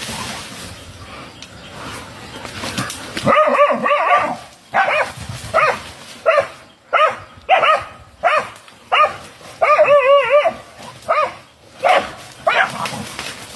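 Dogs barking at a snake: about a dozen short, sharp barks in a run, starting a few seconds in and stopping just before the end, with a brief stretch of yelping in the middle.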